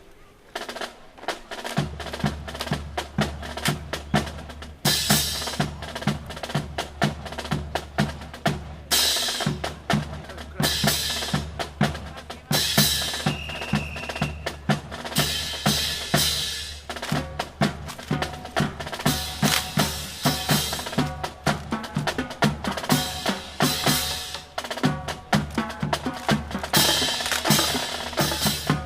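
Music with a steady drum beat of bass drum and snare over a sustained low bass, starting about two seconds in, with loud crashes recurring throughout.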